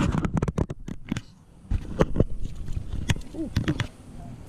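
A hooked pike splashing and thrashing at the water's surface as it is reeled to the dock and lifted out: bunches of irregular splashes and knocks in the first second, again around two seconds in, and near the end.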